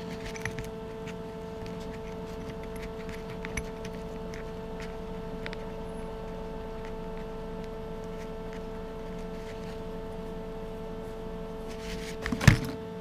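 Steady hum of a running workshop machine, holding a few fixed tones, with scattered light clicks and one loud clunk near the end.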